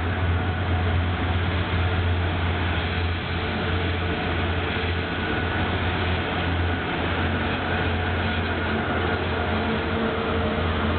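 Two TEP70BS passenger diesel locomotives coupled together, passing close by under power: a steady low diesel drone with the running noise of the train on the rails.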